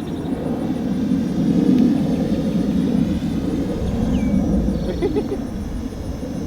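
Wind rumbling on the microphone, over the faint high-pitched whine of the Parrot Anafi quadcopter's motors and propellers. The whine drifts in pitch as the drone flies in sport mode.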